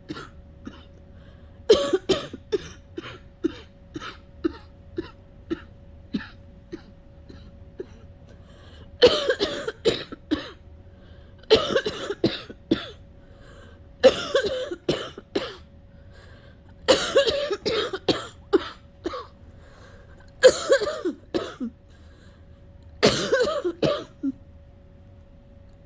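A sick person coughing in repeated fits, straining to bring up phlegm and failing. A run of short coughs fades away over several seconds, then six harder coughing fits follow about every three seconds.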